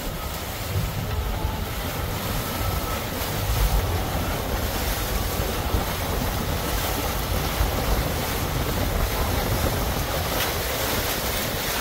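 Steady rush of seawater surging in over the open transom and washing across the deck as the boat backs down on its twin Suzuki 200 outboards. Wind buffets the microphone throughout.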